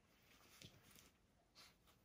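Near silence, with faint soft rustles of bedding as a puppy shifts about on a bed, about half a second and a second and a half in.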